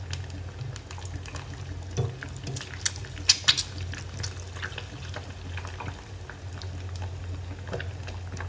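An egg deep-frying in hot oil in a small pan: continuous sizzling with scattered crackles and pops, the loudest a little after three seconds in, over a low steady hum. The oil is hot enough to brown and crisp the egg's edges.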